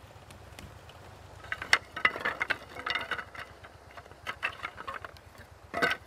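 Sawn wooden boards knocking and clacking against each other as they are handled and stacked: a run of sharp, ringing knocks from about a second and a half in, and a louder knock near the end. An engine idles low underneath.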